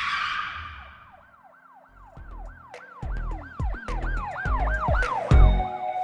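Produced intro sound effect: a swoosh hit, then a siren-like tone rising and falling about three times a second, with bass thumps coming in about two seconds in and speeding up, ending in a loud hit near the end.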